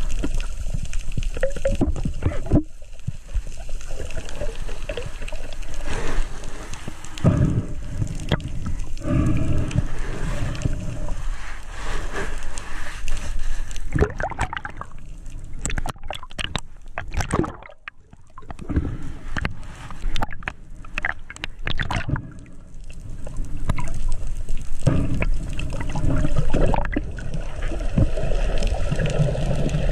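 Water noise heard underwater through a camera's waterproof housing: muffled, irregular sloshing and gurgling, with a run of sharp clicks about halfway through.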